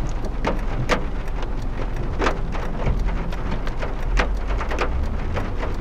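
Rain striking a car's roof and windscreen, heard from inside the cabin: irregular sharp drop impacts over a steady hiss, with a low rumble from the moving car underneath.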